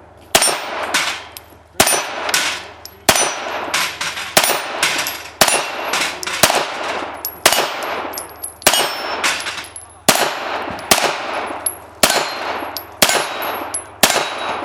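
A 9mm pistol fired in a long string of single shots, roughly one every half second to a second with short pauses between groups, each shot followed by a brief echoing tail.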